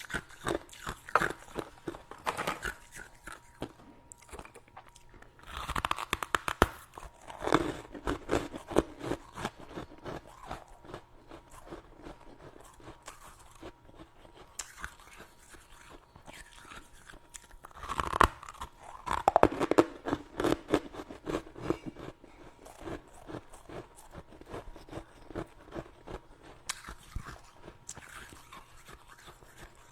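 Close-up biting and chewing of powdery freezer frost, a crisp crunching. Two bigger bites come about six seconds in and again about eighteen seconds in, each followed by a run of smaller chewing crunches that tapers off.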